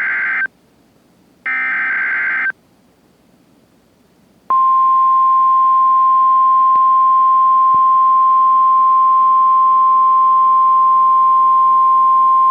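NOAA Weather Radio Required Weekly Test signalling: two short buzzing SAME digital header bursts, each about a second long, with a gap between them. About four seconds in, the 1050 Hz Warning Alarm Tone starts, a single loud steady tone.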